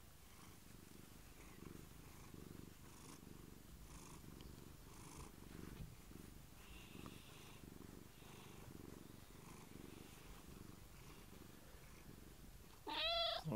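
Domestic cat purring softly and steadily while being stroked. Near the end, a short, much louder pitched sound bends up and down in pitch.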